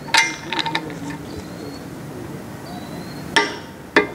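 Steel socket and extension clinking onto a propeller bolt head, then a click-type torque wrench clicking twice near the end as the bolt reaches its set torque.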